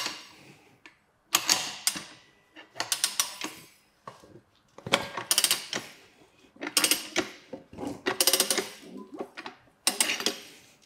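Manual motorcycle tire changer forcing the first bead of a stiff touring tire over the rim with its duck head: about seven separate bursts of clicking, grinding mechanical noise, each about a second long, roughly a second and a half apart.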